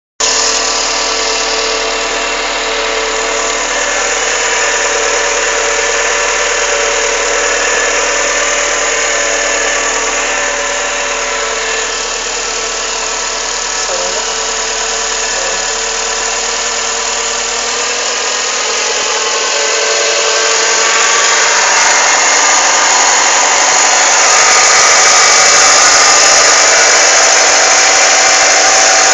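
Volkswagen Voyage engine running, with several steady whining tones, and getting louder from about two-thirds of the way in as it is accelerated. It carries the strange noise the owner hears under acceleration, which a dealer check of the pulleys and timing belt has not traced.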